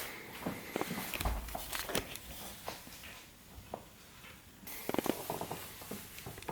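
Handling noises: scattered light clicks, taps and rustles, with a dull low thump about a second in and a quick run of clicks near the end.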